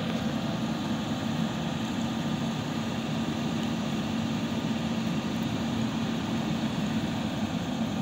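JCB 3DX backhoe loader's diesel engine idling steadily, a low, even hum.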